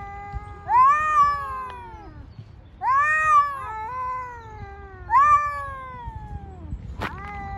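A cat yowling at another cat in a standoff: three long, wavering threat yowls, each swelling and then falling away, the warning calls before a cat fight. A short sharp click near the end.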